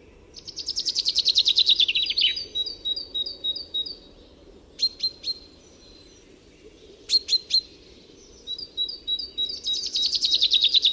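A songbird singing: a fast trill of repeated high notes that drops at the end, a run of short notes, a few sharp chips, then the fast trill again near the end.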